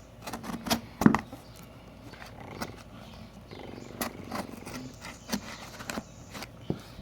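A box and its packaging being handled and opened: a series of knocks, clicks, scrapes and rustles, loudest about a second in.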